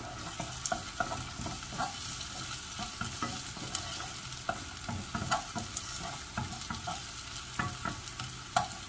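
Sliced onions sizzling in a non-stick saucepan while a wooden spatula stirs them, scraping and knocking against the pan at irregular moments, with one sharper knock near the end.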